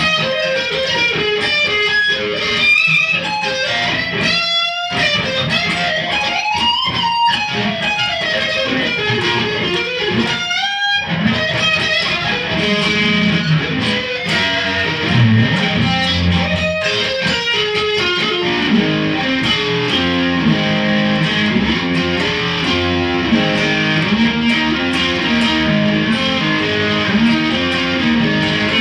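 Electric guitar playing: a lead line with bent and sliding notes in the first half, then lower notes stepping through a riff in the second half.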